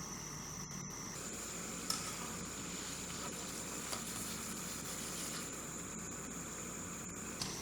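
Steady sizzling hiss of food cooking in a pan, with a few light clicks about two and four seconds in.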